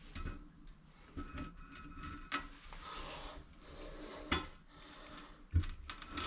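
Scattered light clicks and knocks of hand work on a toilet installation, a few with a short metallic ring, the sharpest about two and four seconds in.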